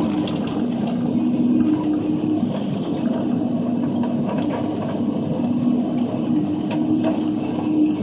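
Log processor with a Waratah 622B head running, heard from the cab: the machine's engine and hydraulics make a steady hum that steps back and forth between two pitches as the boom and head move. A few sharp knocks from the head come near the start and again about six to seven seconds in.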